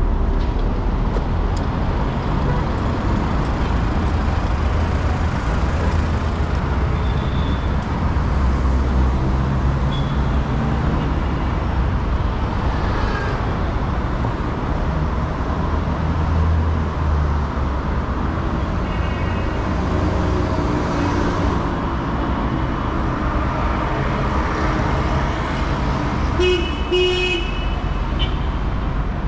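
Busy city street traffic: engines and tyres passing steadily, with a few short car-horn toots and one louder honk near the end.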